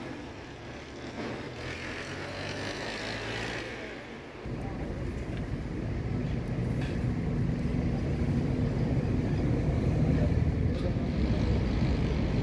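Steady low rumble of motor vehicles, stepping up louder about four and a half seconds in and then holding.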